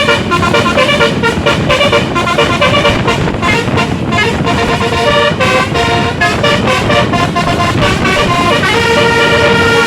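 A bus's 'telolet basuri' musical air horn playing a fast melody of short stepping notes, with a longer held note near the end, over a steady low rumble.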